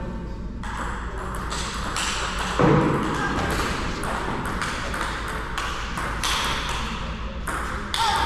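Table tennis rally: the ball clicking off the paddles and the table in quick, uneven succession, with a brief louder low-pitched sound about two and a half seconds in.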